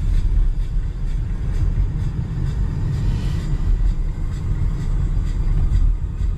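Steady low rumble of tyres and engine heard from inside a moving car's cabin.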